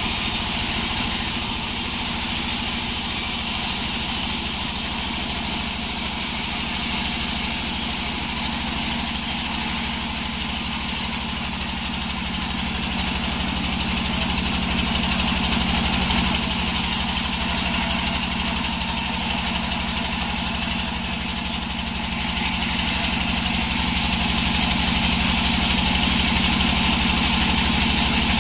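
Sawmill engine running steadily, with a constant hiss above the low engine hum.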